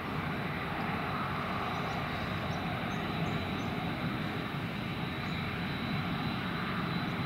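Turbofan engines of a KLM Cityhopper Embraer E-Jet running steadily, a continuous rushing noise with a faint steady high whine.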